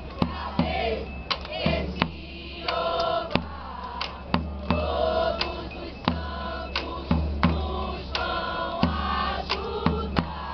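A group of voices singing together over sharp drum strikes, about two beats a second.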